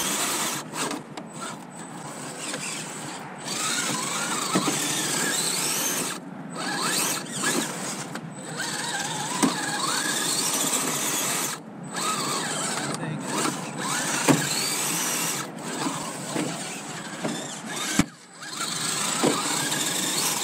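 Redcat Gen 8 RC rock crawler's electric motor and geared drivetrain whining as it strains at a boulder, its tyres scrabbling on stone. The whine rises and falls and stops briefly three times. The truck is hung up: its links and centre skid bump are caught on a round rock.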